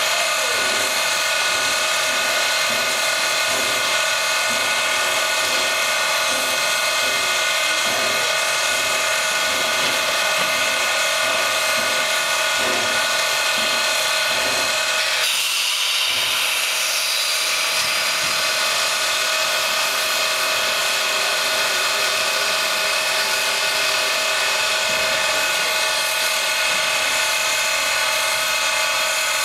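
East Broad Top Mikado No. 15 steam locomotive standing with steam up: a steady hiss and high whine, with a stronger rush of steam about halfway through.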